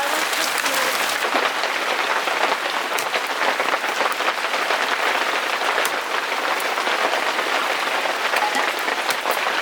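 Heavy rain with fine hail falling: a dense steady hiss dotted with many sharp ticks of hailstones striking.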